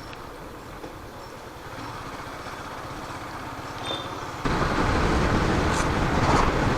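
Motorcycle running on the move, a steady engine rumble mixed with road noise, which turns abruptly louder about four and a half seconds in.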